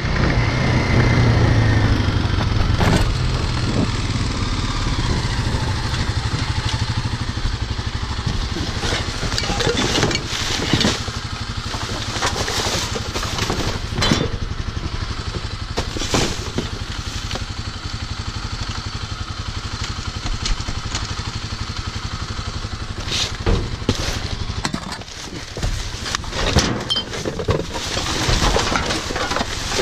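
Motorcycle engine running as the bike pulls up, then idling steadily, while plastic trash bags and rubbish in a dumpster rustle, crinkle and clatter in sharp bursts as they are pulled about.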